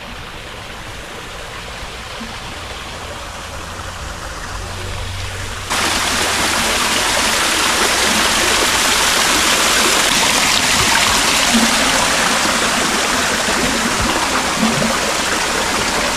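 A steady rush of falling water from a garden water feature. It swells gradually, then gets suddenly louder about six seconds in.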